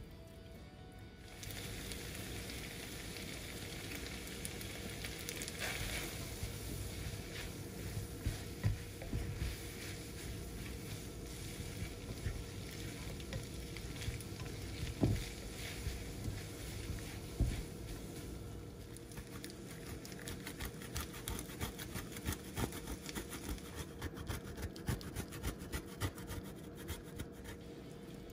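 Noodles sizzling in a hot nonstick wok as they are tossed and stirred, with many soft clicks and scrapes of the utensils against the pan. The clicks grow more frequent in the second half.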